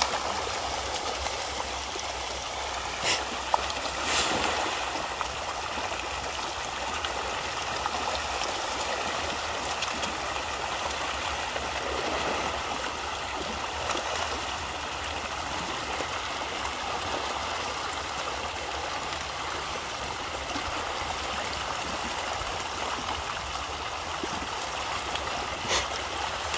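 A large shoal of fish thrashing and splashing at a pond's surface, a steady churning of water with a few louder splashes about three to four seconds in and again near the end.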